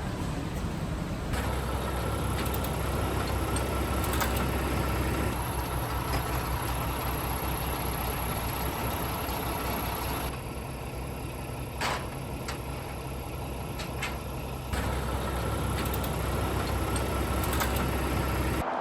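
Steady hum of assembly-plant machinery, with a few sharp clicks and knocks. The level shifts abruptly a few times.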